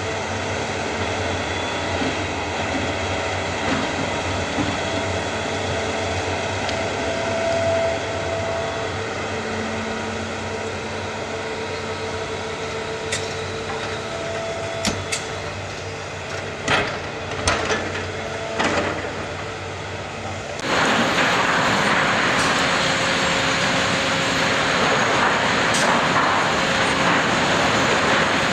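Diesel engine of a tracked log loader running steadily while it loads logs onto a log truck, with a handful of sharp knocks between about halfway and two-thirds through as logs are set on the load. About three-quarters in, the sound cuts abruptly to a louder, steady rushing engine noise.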